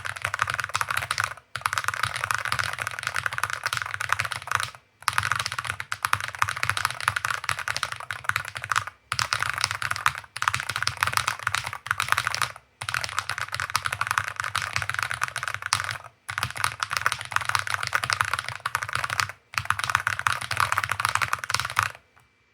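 Very fast typing on a Rainy75 RT Pro keyboard with Gateron Jade Pro switches on the letter keys: a dense, continuous clatter of keystrokes in runs of a few seconds, broken by brief pauses, stopping just before the end.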